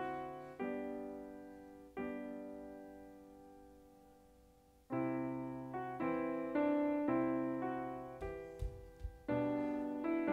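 Piano playing slow chords, each struck and left to ring out and fade, one held for about three seconds before the next comes in. A few soft low thumps sound about eight seconds in.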